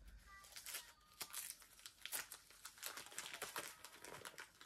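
Gift wrapping paper crinkling and tearing in irregular crackles as a small present is unwrapped by hand.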